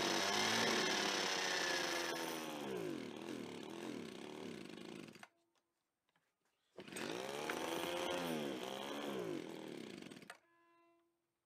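Small two-stroke engine on a cheap aftermarket carburetor running with its speed rising and sagging, then stalling about five seconds in. It runs again briefly and stalls once more near the end. It won't rev without stalling, acting too lean, a sign that the carburetor's idle jet needs opening.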